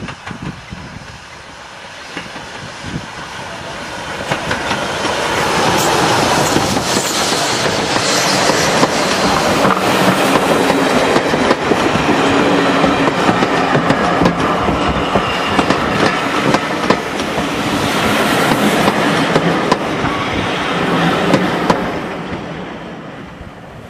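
A steam-hauled passenger train passing close by. The sound builds a few seconds in, then the coaches roll past with a run of sharp wheel clicks on the rails, and it fades away near the end.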